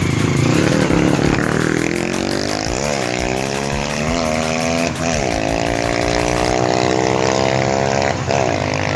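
A nearby vehicle engine accelerating, its pitch climbing, broken by sharp drops like gear changes about a second apart and once more near the end.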